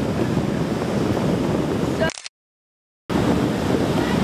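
Wind buffeting the microphone over ocean surf, a steady rough noise. About two seconds in, the sound cuts out completely for about a second, then comes back.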